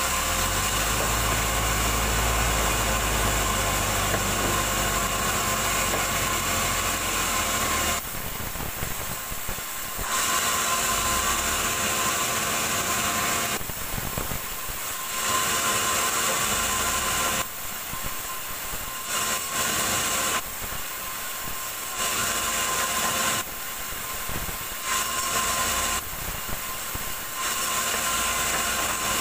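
Sawmill band saw cutting lengthwise through a large log: a steady high-pitched hiss and whine of the blade in the wood, with a low hum under it for the first several seconds. The cutting noise drops away briefly several times, between passes as slabs come off.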